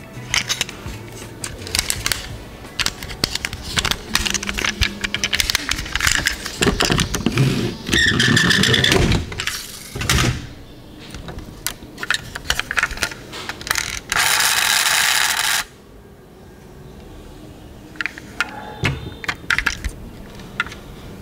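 Clicks, taps and rattles of die-cast metal toy cars being handled, their small hinged doors opening and snapping shut. Two louder stretches of continuous noise stand out: one in the middle, and a hiss of about a second and a half that starts and stops abruptly later on.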